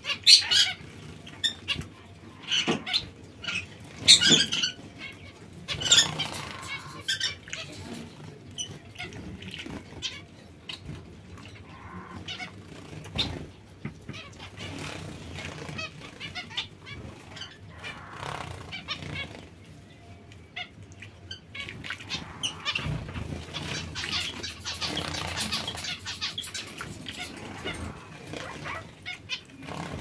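Aviary finches, zebra finches among them, calling in short, scattered chirps. The loudest calls come near the start and around four and six seconds in.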